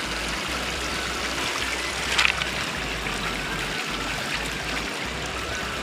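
Shallow water trickling and running between river-bed stones and pebbles, fed by water seeping up through the gravel. There is a brief louder sound about two seconds in.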